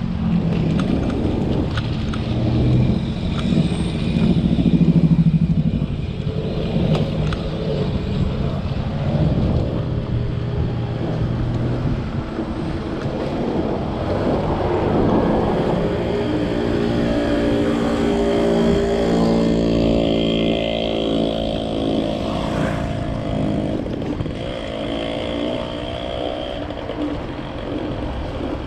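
Motor vehicle traffic heard from a moving bicycle, with a low rumble of wind and road throughout. An engine's steady hum comes in about halfway through and holds for several seconds, then comes again near the end.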